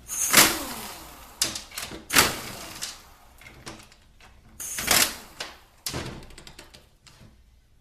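Hand tools and small metal parts knocking and clinking as the 8 mm bolts are taken out of a cover on a 4L60E automatic transmission. There are several separate sharp knocks, and a quick run of light clicks a little past the middle.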